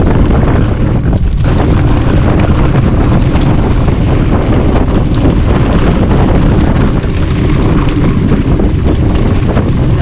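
Loud wind buffeting a ride-along camera's microphone as a full-suspension mountain bike runs fast down a jump trail, with many small knocks and rattles from the bike over the ground.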